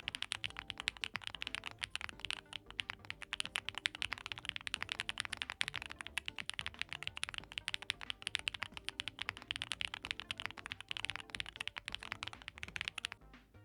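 Fast, continuous typing on a QK Alice Duo mechanical keyboard with Gateron Type R switches and a polycarbonate plate, a rapid stream of keycap clacks that stops about a second before the end. Quiet background music plays underneath.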